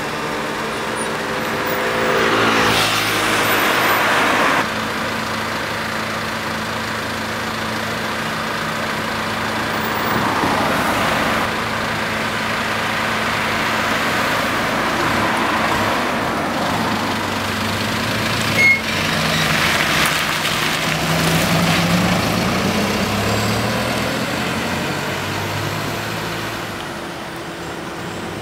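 A Mitsubishi Fuso Canter three-axle truck's diesel engine running as it pulls away, rising in pitch as it speeds up about two-thirds of the way in and fading as it drives off. Loud bursts of hiss come with it; the first, about two seconds in, stops abruptly a couple of seconds later.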